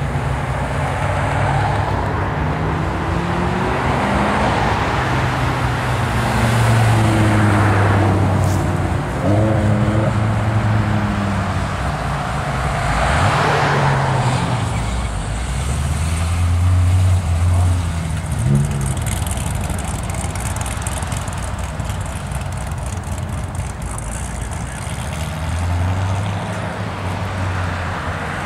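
Several performance cars accelerating away one after another, first a Chevrolet Camaro, then a BMW M5 and M3, then a Chevrolet Corvette. The engine notes climb in pitch as they rev, over a steady hum of road traffic.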